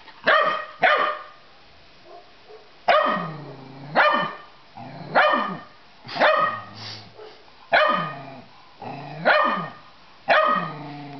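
Puppy barking repeatedly: about ten barks, roughly one a second, with a pause of about two seconds after the first two.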